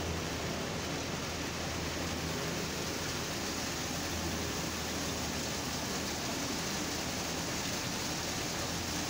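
Tractor-powered wheat thresher running steadily as wheat sheaves are fed into it: an even rushing noise over the low hum of the tractor engine that drives it.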